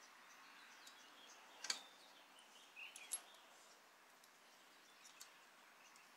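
Near silence, broken by a few light clicks and taps, the loudest about two and three seconds in: small metal engine parts, the balance shaft bearing shells, being handled and fitted by hand.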